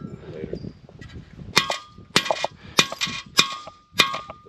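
Short-handled hammer driving a concrete anchor bolt through a galvanized steel bottom plate. Five sharp metal clangs at an even pace, about 0.6 s apart, starting about 1.5 s in, each blow ringing briefly.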